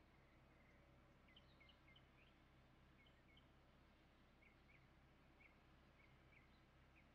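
Near silence: faint short bird chirps repeat a few times a second over a low steady hum.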